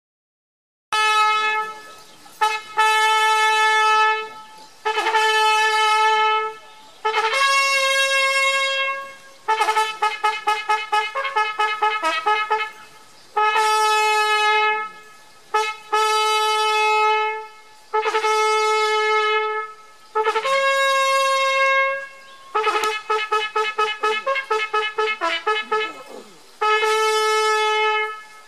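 A solo brass horn playing a signal call, starting about a second in: long held notes alternating with quick runs of repeated short tongued notes, mostly on one pitch, with a slightly higher note held twice.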